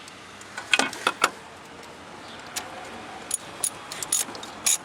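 Metal clinking of a 13 mm ratchet socket wrench being handled, then the ratchet clicking in short strokes at about two or three a second over the last second and a half.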